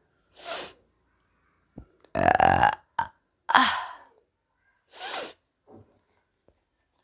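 A woman burping after drinking soda: a long, loud pitched burp about two seconds in and another about a second and a half later, with short breathy sounds between them.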